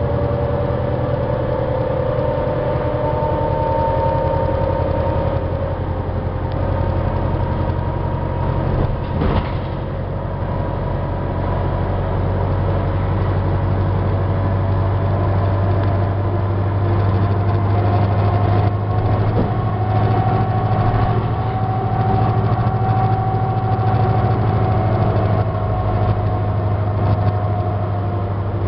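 Inside a 1996 New Flyer D40LF bus cruising steadily: the Detroit Diesel Series 50 engine's low drone, with the higher-pitched whine of its Voith D863.3 transmission drifting slowly in pitch. A single brief knock about nine seconds in.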